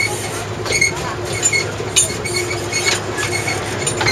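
DIEMA diesel locomotive of a narrow-gauge sugar-cane railway running, a steady engine drone with rattling from the train and a few sharp clicks.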